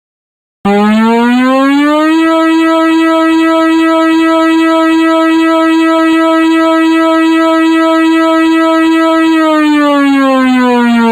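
ESC-864 electronic warning siren sounding its 'All Clear' signal. After about half a second of silence, one tone starts, rises in pitch over a second or so, and holds steady and loud. Near the end it begins to wind down in pitch.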